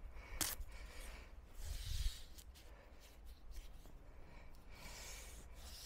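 Faint handling sounds of marking out and laying masking tape on a stone windowsill: light scratching and rubbing, with a sharp click about half a second in and a dull knock about two seconds in.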